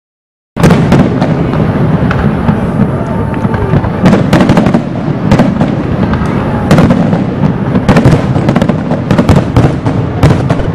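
Fireworks: a dense, continuous barrage of bangs and crackles over a low rumble, starting abruptly about half a second in.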